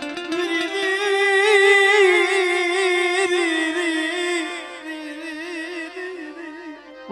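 Gujarati devotional dakla singing: one voice holds a long wavering note with vibrato over a steady accompaniment, fading out in the second half.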